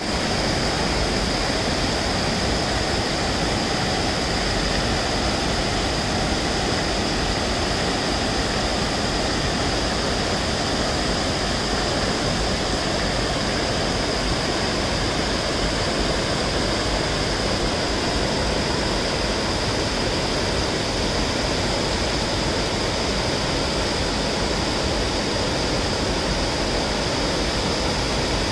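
Water spilling over a long, low river weir, a steady loud rush of falling water.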